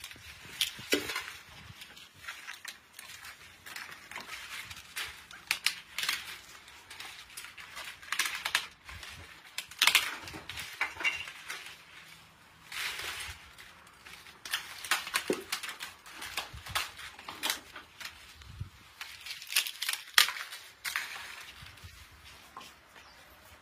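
Dry, brittle papad sheets crackling and crunching as they are handled, gathered and pulled apart, in irregular bursts.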